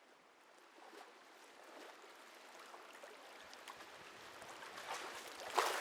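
Faint lapping and trickling water, slowly growing louder, with small scattered ticks and a sharp knock about five and a half seconds in.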